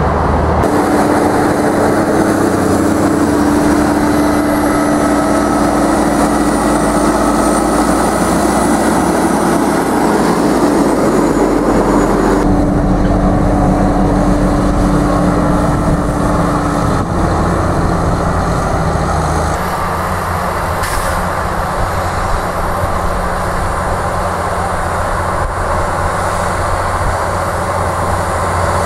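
Large Case IH tractors' diesel engines running under load while pulling implements across a field, in separate clips. The steady engine sound and its held tones change abruptly about 12 and 20 seconds in.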